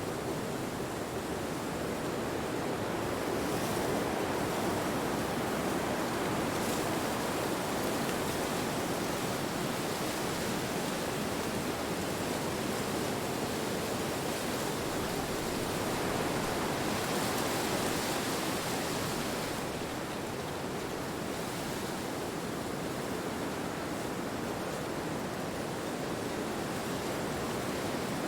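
Wind blowing steadily, a continuous rushing hiss with a few brief gusts brightening the sound, the longest about two-thirds of the way through.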